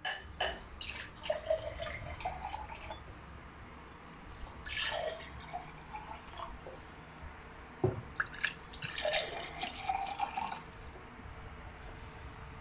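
Water poured from a stainless steel kettle into clear drinking glasses, splashing and filling in several separate pours. There is a single sharp knock about eight seconds in.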